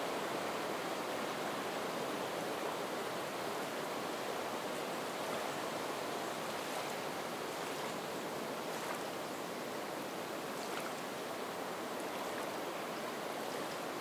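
Soft, steady wind through the marsh reed beds, with water lapping at the shore, making an even rushing hiss.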